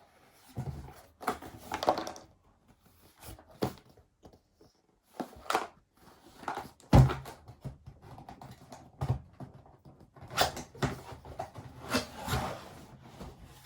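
Keyboard box and its packaging being opened and rummaged through: irregular rustling, scraping and knocks, the loudest knock about seven seconds in.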